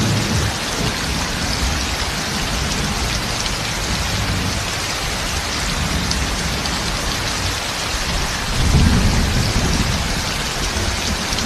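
Heavy rain pouring down in a steady downpour, with low rolls of thunder: a brief one at the start and a louder one about eight and a half seconds in.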